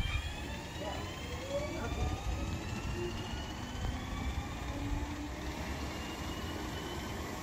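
Alstom Coradia Nordic (X61) electric multiple unit pulling away from the station, its traction motors whining in several tones that rise steadily in pitch as it gathers speed, over a low rumble of wheels on the rails.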